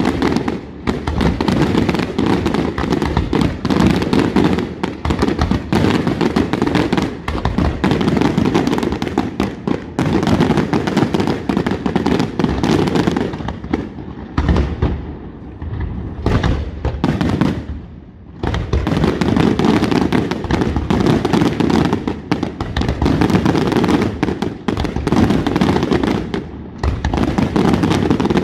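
Aerial fireworks display: shells bursting in a dense, continuous barrage of booms and crackles, with brief lulls about halfway through.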